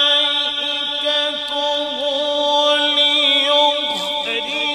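A male qari reciting the Quran in a long melodic chant into a microphone. The voice holds a steady note for most of the phrase, breaks briefly about four seconds in, then moves into a wavering, ornamented run.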